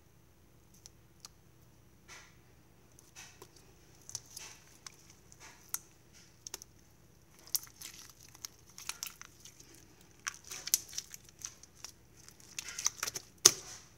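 Iceberg slime being stretched and pressed by hand, giving scattered crackles and pops from its firmer crust that come thicker and louder toward the end, with one sharp loudest pop near the end.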